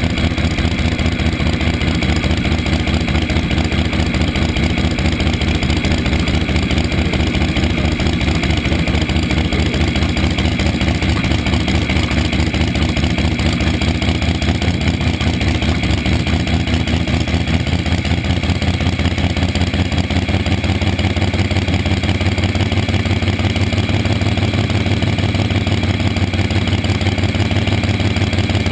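Front-engine slingshot dragster's engine idling loud and lumpy with a rapid, even firing pulse. Its low rumble grows a little stronger in the last several seconds, with no hard rev.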